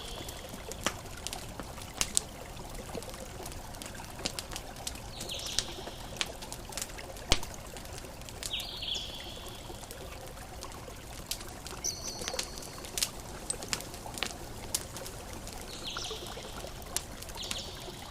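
Campfire crackling, with sharp irregular pops, over a steady wash of water. About six short high calls, likely from birds, are spread through the mix.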